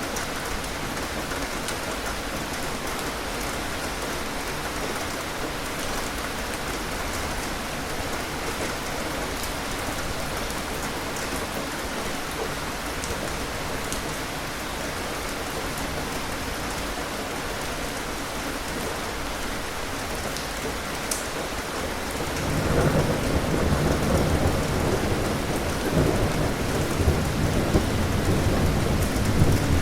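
Steady rain falling, with scattered drop ticks; about three quarters of the way in a low rumble of thunder builds up and goes on rolling to the end.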